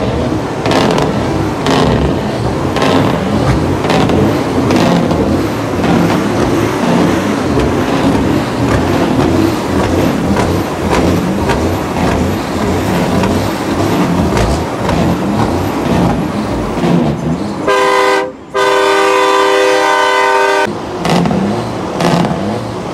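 Semi-truck diesel engines running loud with a pulsing exhaust rumble. Near the end a truck air horn blasts, a short blast then a longer one of about two seconds.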